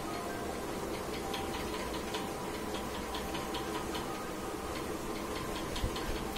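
Light, rapid ticking in short runs, several ticks a second, over a steady low background hum.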